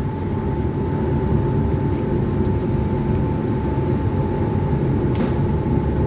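A motor running steadily: a low rumble with a constant mid-pitched whine over it. A brief click about five seconds in.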